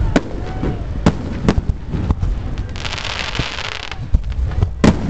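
Aerial fireworks shells bursting: a series of sharp bangs spaced irregularly, the loudest near the end. In the middle there is a dense hiss lasting about a second.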